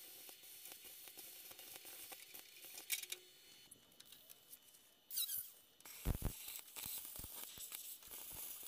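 Pneumatic cut-off tool cutting the rusty sheet-steel wheel arch of a Karmann Ghia, heard faintly as a steady high hiss. About five seconds in there is a short louder burst with a falling squeal, followed by a few low knocks.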